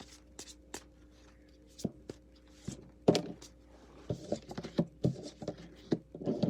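Tarot cards being handled and shuffled: a run of light irregular taps and clicks, the loudest about three seconds in and a cluster more near the end.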